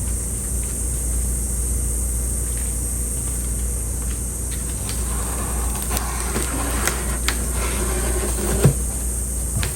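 Steady low rumble with a high hiss throughout. From about five seconds in come rustling, scraping and a few sharp clicks and knocks as parts of the raku kiln are handled and pulled apart.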